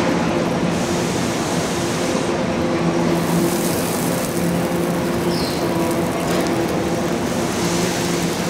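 A steady, loud rumbling noise with a low hum running under it and no distinct events.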